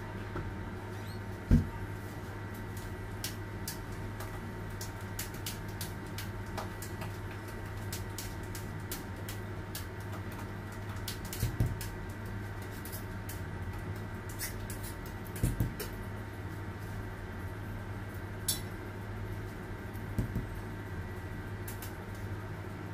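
Light clicks and taps of hands handling fondant decorations and a cake turntable, over a steady low hum. A few dull knocks stand out, the loudest about a second and a half in, and a double knock near the middle.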